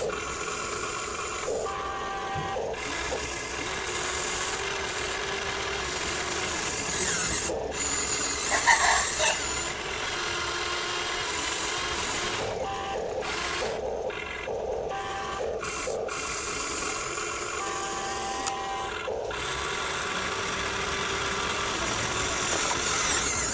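Small electric motors and gearboxes of a Huina 1593 RC excavator whirring as its functions are worked. The whir stops and starts several times, with a louder, straining stretch about eight seconds in.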